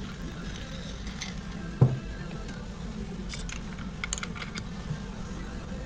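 Light clicks and clinks of clutch plates being handled and stacked onto a motorcycle-type clutch basket, with a single knock about two seconds in and little clusters of clicks after the middle.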